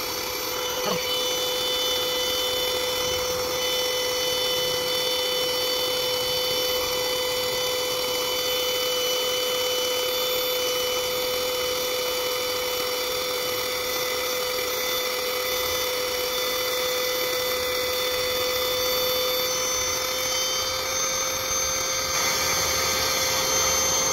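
Built-in electric air pump of a queen-size air mattress running steadily in deflate mode, drawing the air out as the mattress goes down: a constant motor hum.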